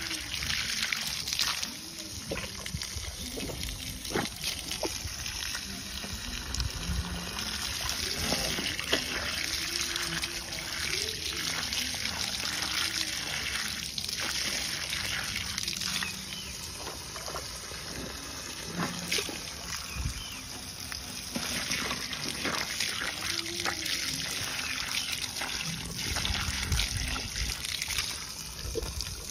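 Water from a garden hose running steadily and splashing as an elephant drinks from the stream with its trunk.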